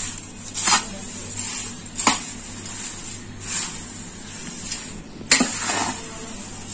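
Metal spoon mixing crisp thin poha chivda in a glass bowl: the spoon scrapes and clinks against the glass and the dry flakes rustle, in separate strokes every second or so.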